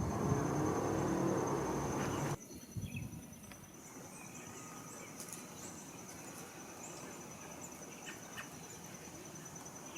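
An insect trills steadily in the background, a continuous high, finely pulsing tone. For the first two seconds a louder low rumble covers it, then cuts off suddenly, leaving the trill with a few faint short chirps.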